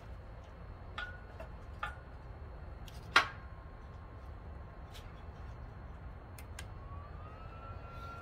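Small sticks and the stove's metal body clicking and knocking as the BioLite CampStove 2 is loaded and handled, with one sharp click about three seconds in. Near the end a faint whine rises in pitch and then holds steady: the stove's built-in fan.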